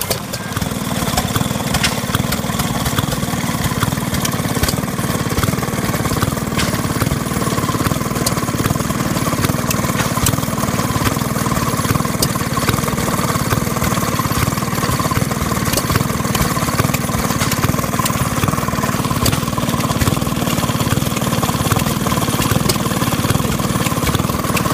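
Maytag two-stroke gas engine running steadily, firing in fast, even beats, with a faint steady high whine underneath.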